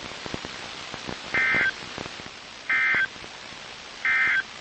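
Three short bursts of EAS SAME digital data tones, each about a third of a second long and spaced about a second and a half apart, over radio hiss and crackle. They are the end-of-message code that closes the flash flood warning broadcast.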